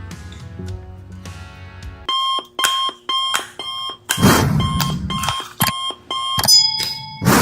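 Background music, then from about two seconds in a quick run of short electronic beeps at a few fixed pitches. Two loud bursts of noise break in partway through and near the end.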